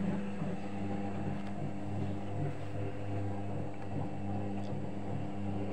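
Arçelik 3320 SA washing machine running, a steady motor hum with a constant low tone.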